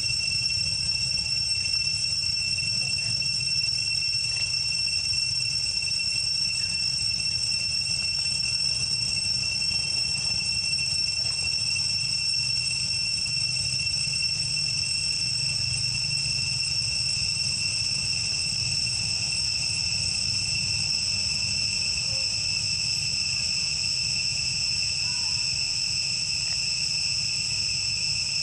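Steady, high-pitched insect chorus, droning unbroken in several even tones, over a faint low rumble.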